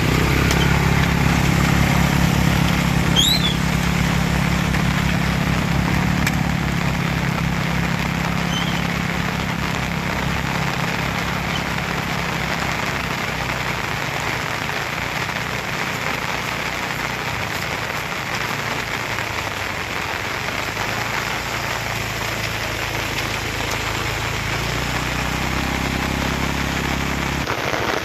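A small engine running at low revs over steady rain. The engine is loudest for the first several seconds, fades away, and comes back near the end.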